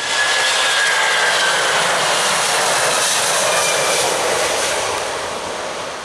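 Airbus A330 jet engines at takeoff power as the airliner rotates and lifts off, with a faint high whine easing down in pitch. The noise holds steady, then fades over the last second or so as the plane climbs away.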